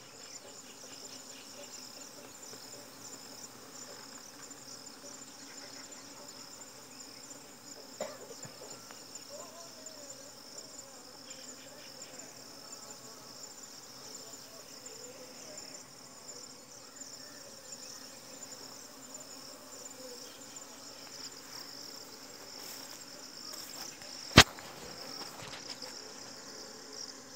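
Honeybees massed at beehive entrances buzzing, with a steady, high, flickering insect chirring over the low hum. A single sharp click stands out a little before the end, with a smaller one about a third of the way in.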